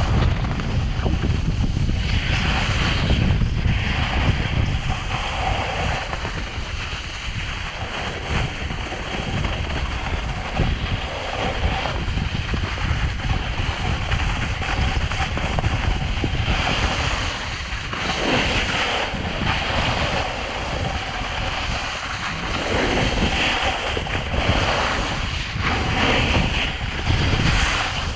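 Wind buffeting a GoPro's microphone during a snowboard run, with the hiss of the board's edges scraping over snow that swells and fades every few seconds as the rider turns.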